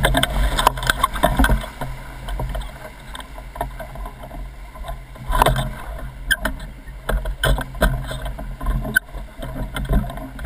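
Whitewater rapids rushing and splashing around an oar-rowed inflatable raft, with a steady low rumble and many irregular sharp splashes and taps of spray hitting the boat and its camera; a big splash comes about five and a half seconds in.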